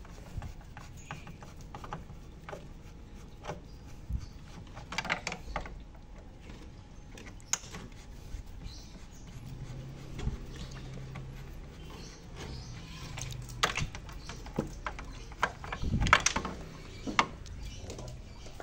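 Scattered clicks, knocks and rattles of plastic and metal parts as screws are undone and the evaporator coil is worked loose from a split air conditioner's indoor unit.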